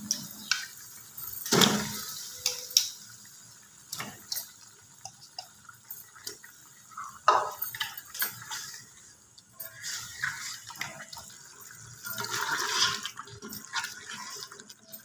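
Water and meat sloshing in a cooking pot as they are stirred with a spoon, with a few sharp knocks of the spoon against the pot.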